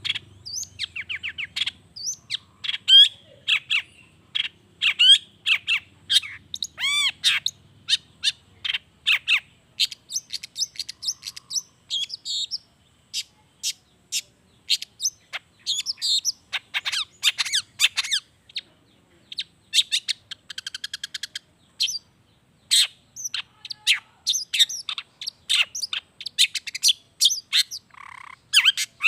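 Long-tailed shrike (cendet) singing a continuous, varied song of quick chirps, sweeping whistles, harsh notes and fast rattling trills, packed with calls mimicked from other birds.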